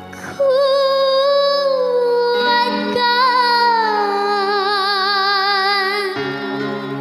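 A young girl singing dangdut in a high voice over electronic keyboard backing. She holds one long phrase that slides slowly downward, with a wide vibrato near the end, and breaks off about six seconds in while the keyboard chords carry on.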